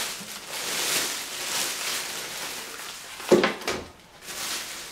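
Packaging rustling as a slow cooker is unpacked and handled, with a sharp knock about three seconds in and a smaller one just after, as something hard is set down or bumped.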